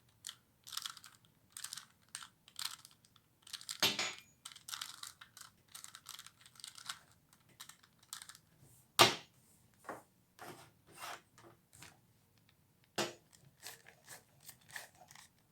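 Plastic 3x3x3 Rubik's cube being turned by hand: a run of irregular clicks and rattles as its layers snap round, one sharper click about halfway through.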